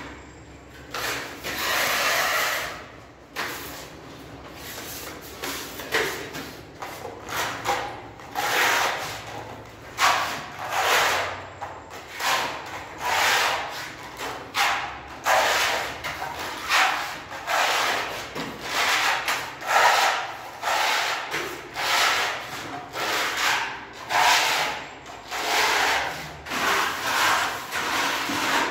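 Hand-sanding dried wall putty with sandpaper: a long series of rasping strokes, about one a second.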